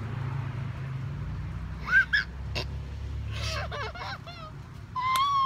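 Muffled, closed-mouth squeals and whimpering hums from two people holding mouthfuls of very sour candy they may not spit out: a short rising-and-falling squeak about two seconds in, a cluster of wavering squeaks around three and a half to four and a half seconds, and a held high hum near the end.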